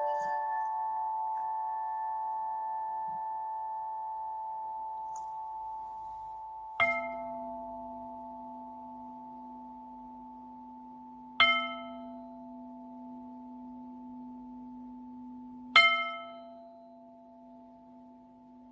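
Meditation music of struck, bell-like tones that ring on and slowly die away. There are three strikes about four and a half seconds apart, over the fading ring of earlier notes, and a low steady tone starts with the first strike.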